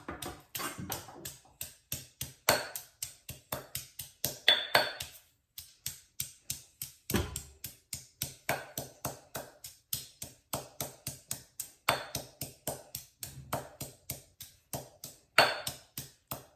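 Garlic being struck over and over with a kitchen utensil: rapid, steady strikes, about five a second, some with a short metallic ping.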